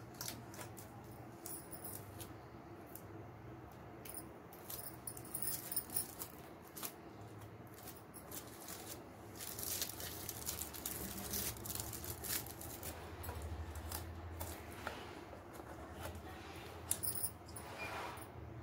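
Aluminium foil crinkling and rustling in short spells as it is folded and pressed around a cardboard disc, with scattered small clicks and taps.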